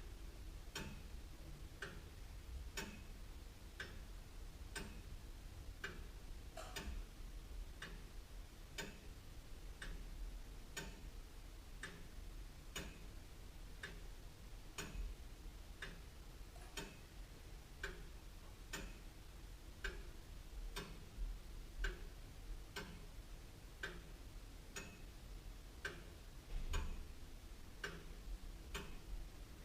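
Antique William Holliwell of Liverpool clock ticking steadily, about one tick a second, over a faint low hum. There is a brief low thump near the end.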